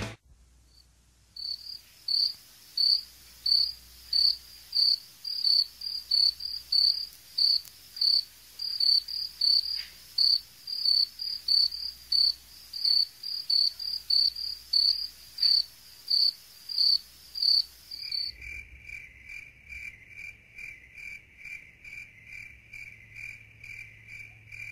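Cricket chirping sound effect, with evenly spaced high chirps about twice a second. About eighteen seconds in, it switches to a lower-pitched, faster chirp.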